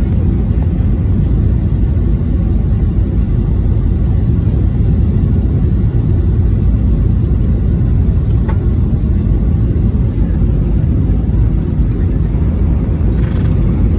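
Cabin noise of a jet airliner during its final descent and landing: a steady, loud, low rumble of engines and rushing air heard from inside the cabin.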